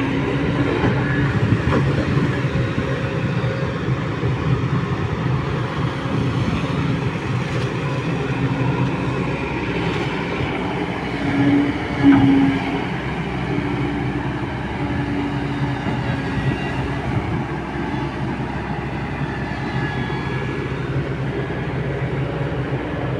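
Kobelco hydraulic excavator's diesel engine running steadily while it digs, with a held tone over the engine note. The sound swells briefly about twelve seconds in.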